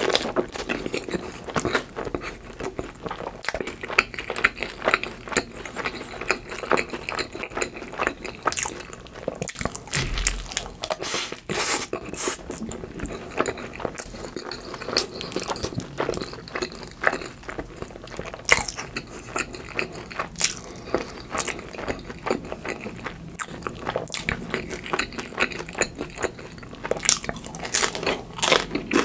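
Close-miked chewing and crunching of a crisp hash brown topped with mashed avocado, with many sharp crackles and wet mouth sounds throughout.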